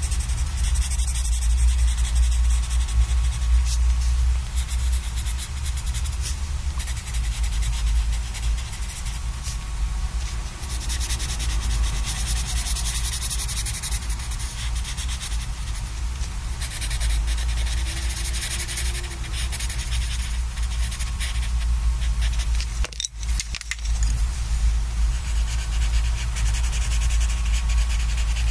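Colored pencil scratching across sketchbook paper in quick back-and-forth shading strokes, with a short break about two-thirds of the way through.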